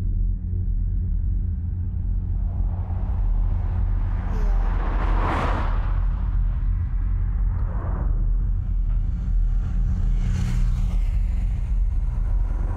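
Steady low rumble of a stationary car's engine, heard from inside the cabin. Cars pass on the road outside, swelling and fading about five seconds in and again about ten seconds in, with a fainter pass between them.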